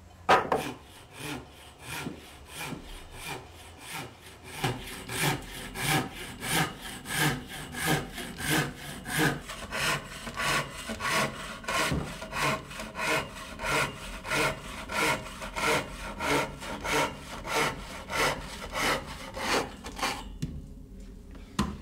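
Wooden frame saw ripping along a board clamped upright in a bench vise, cutting in steady back-and-forth strokes about two a second. The sawing stops shortly before the end.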